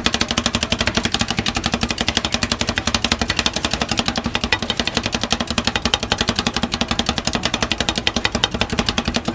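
Metal spatula blades chopping rapidly and evenly against the frozen steel plate of a rolled-ice-cream cold pan, making a fast, steady clatter of clicks over a low hum.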